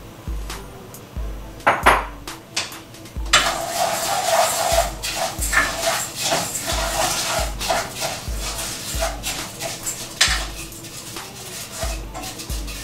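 Dry basmati rice going into a pot of heated oil and being stirred: a dense rattle and scraping of grains and spoon against the pot, starting about three seconds in and easing off after about ten seconds, with a few sharp clicks of utensils before it.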